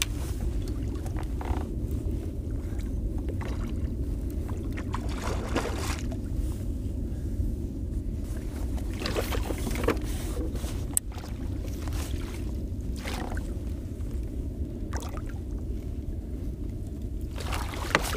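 Steady low rumble of water and wind around a kayak, broken by a few brief sharp sounds while a hooked trout is played alongside.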